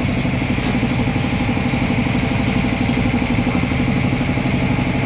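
An engine running steadily at idle, with an even, fast firing pulse.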